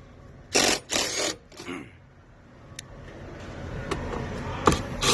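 Three short trigger pulls of a cordless power tool, a fraction of a second each, about a second in, as seatbelt hardware is fastened. Faint clicks and knocks of parts being handled follow near the end.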